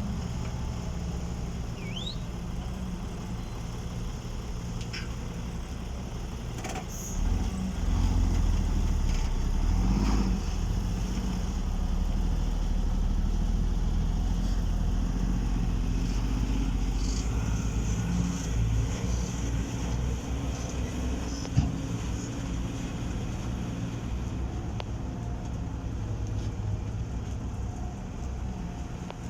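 Diesel engines of heavy construction machinery running steadily, growing louder and deeper from about seven seconds in until about sixteen seconds. A single sharp knock comes about twenty-one seconds in.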